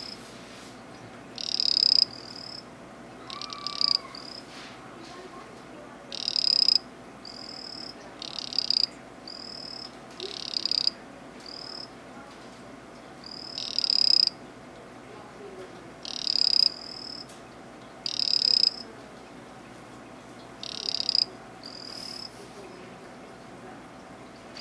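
Poison dart frog calling: a series of short, high buzzing trills, each under a second, swelling in loudness before cutting off abruptly, repeated every one to two seconds, some louder and some fainter.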